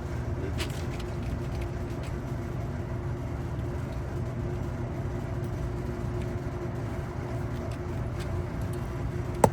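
Steady low mechanical rumble with a faint steady hum, with a few light clicks and one sharp click near the end.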